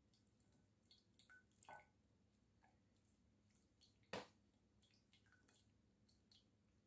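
A few faint wet taps and soft plops of stir-fried chicken and vegetables dropping into a serving bowl, the loudest about four seconds in; otherwise near silence.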